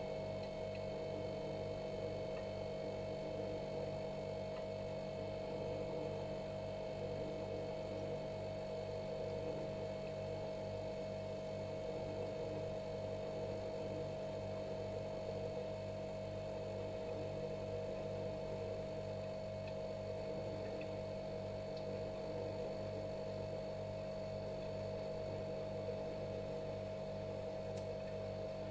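Refrigerator running: a steady, unchanging hum with a clear constant tone above it.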